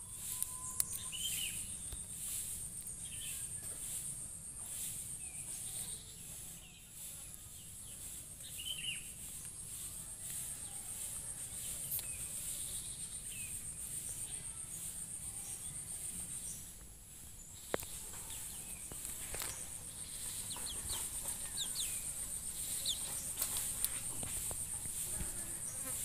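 Insects trilling in a steady, high-pitched band that stops briefly twice, with scattered short bird chirps and a few sharp clicks.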